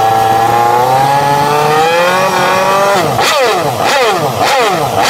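Honda RC213V-S's V4 engine running with its pitch creeping slowly upward. About three seconds in, the throttle is blipped sharply about four times, each rev falling quickly away.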